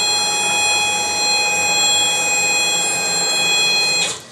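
Quick CNC K6100A router's spindle running at high speed as a 4 mm cutter mills 10 mm acrylic: a steady, high, multi-tone whine over a rushing noise. It cuts off abruptly about four seconds in.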